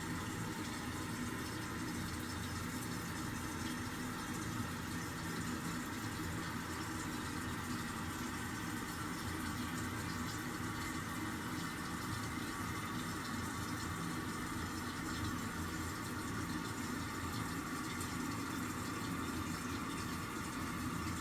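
Korky 528MP QuietFill toilet fill valve refilling the tank after a flush, a steady hiss of water running in under the closed tank lid.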